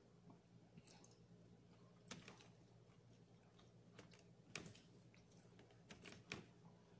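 Faint eating sounds: a scattering of short, soft mouth clicks and smacks while chewing, about half a dozen, with the loudest two about four and a half and six seconds in.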